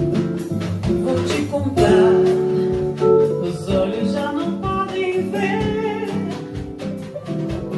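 Music from an MPB and bossa nova trio: an instrumental passage between sung lines of a song medley.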